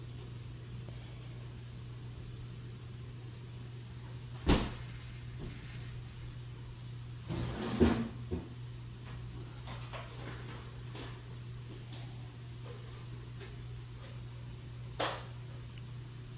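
Wooden coloured pencils knocked against a desk as they are set down and picked up: a sharp knock about four seconds in, a brief clatter around eight seconds, and a lighter knock near the end, over a steady low hum.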